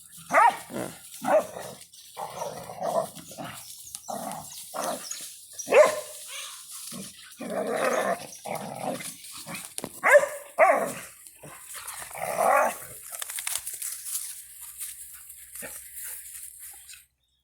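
Dogs barking in play, a string of short barks and yelps that thin out and grow fainter about thirteen seconds in.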